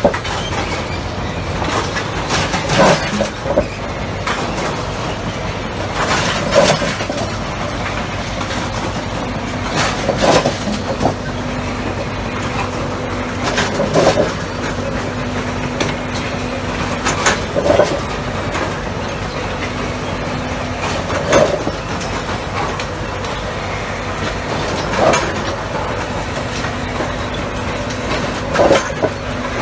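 Track-renewal work train's machinery running steadily, with a sharp clank about every three and a half to four seconds from the repeating cycle of its sleeper-laying gear setting new sleepers on the ballast.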